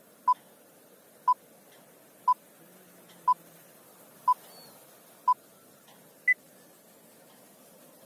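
Countdown leader beeps: six short, identical beeps one second apart, then a seventh, higher-pitched beep that marks the end of the count, over a faint hiss.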